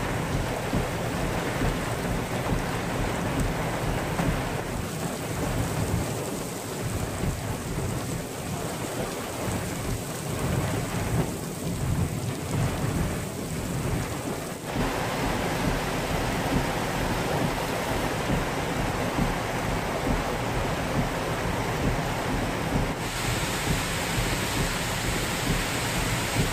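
Heavy rain and rushing floodwater in a downpour: a steady, dense noise with a low rumble. Near the end it turns brighter and hissier as a muddy torrent pours down a rock face.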